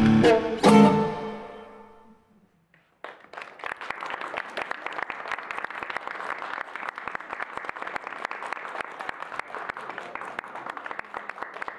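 Classical guitar and violin end a piece on a final struck chord that rings out and fades. After a brief silence, an audience applauds steadily.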